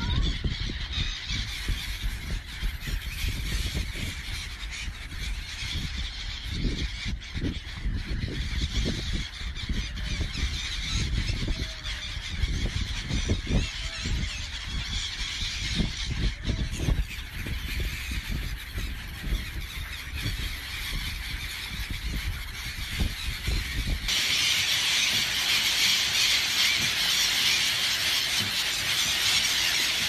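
A large flock of gulls calling with harsh squealing cries over a low rumble. About three-quarters of the way through, the rumble drops away and the calling becomes louder and denser.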